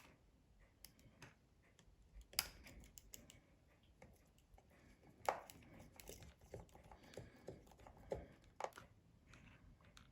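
Faint, scattered clicks and taps of small hand tools and phone parts being handled, with two sharper taps about two and five seconds in.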